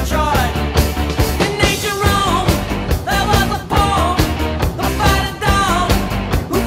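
Background rock music with a steady drum beat and a sung vocal line.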